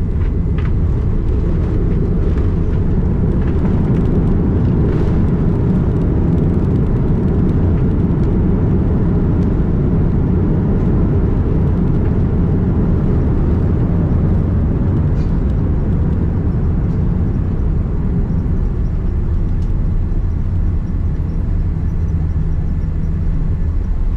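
Cabin noise inside a Boeing 787-9 rolling on the ground after landing: a steady, loud low rumble of engines and tyres with a hiss above it, easing slightly after about 18 seconds.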